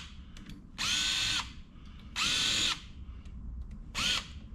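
Small electric drill/driver run in three short trigger pulls, each about half a second or less. The motor whine rises as it spins up and falls as it stops, with a short last pull near the end.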